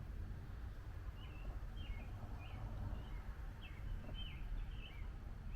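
A songbird chirping: a run of about ten short, falling notes from about a second in until near the end, over a steady low outdoor rumble.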